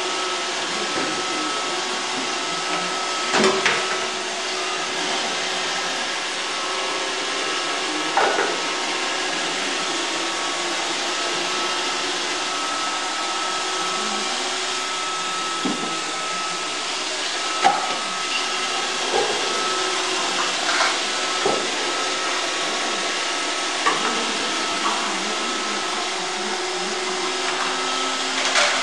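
iRobot Roomba 555 robot vacuum running with a steady whirring hum, broken by occasional short knocks.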